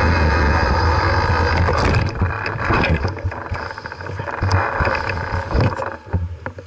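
Riding noise from a bicycle: wind buffeting the microphone along with tyre noise, steady and loud, then easing after about two seconds into quieter rattles and scattered clicks as the bike slows.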